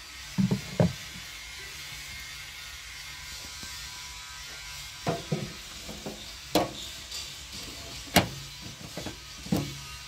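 Sharp metallic clicks and knocks as a tractor's fuel filler cap is handled and fitted on its metal bonnet, about seven spread out, the loudest about eight seconds in.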